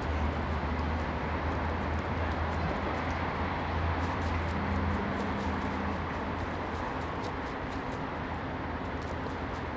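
City street traffic noise: a steady low engine rumble that fades after about six seconds.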